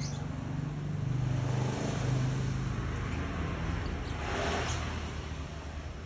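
A motor vehicle engine running with a low, steady hum that grows louder for a couple of seconds about a second in, then a brief swell of broader noise about four and a half seconds in.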